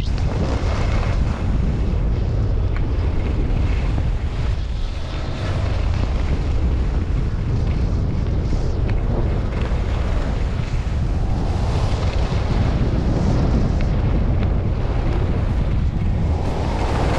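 Wind buffeting the microphone during a downhill ski run, with the hiss of skis sliding on snow; a steady, heavy rumble that swells and eases a little.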